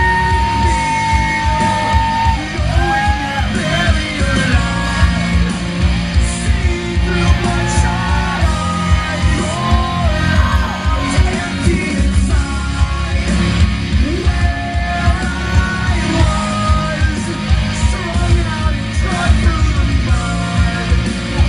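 Loud music with a singer's voice over a steady, driving beat.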